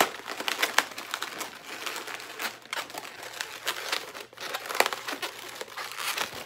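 Inflated latex modelling balloons squeaking and rubbing against each other as they are twisted together and pushed into place by hand: an irregular run of short crinkly squeaks.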